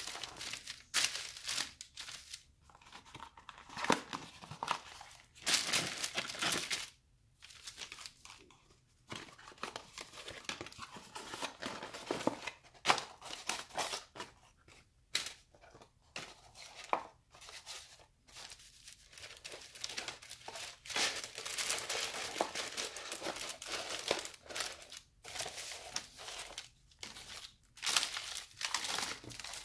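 Paper and cardboard fast-food packaging rustling and crinkling in irregular bursts with short pauses: a paper wrapper and paper bag being smoothed and handled, Chicken McNuggets tipped out of their cardboard box and fries shaken from their carton.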